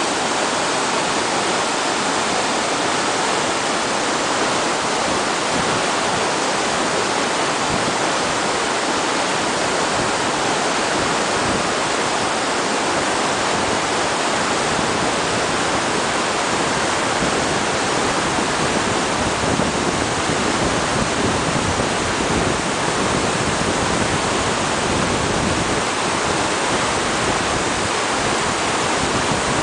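Glacial meltwater torrent rushing out of the Oberaar Glacier's ice portal: a steady, loud rush of turbulent water.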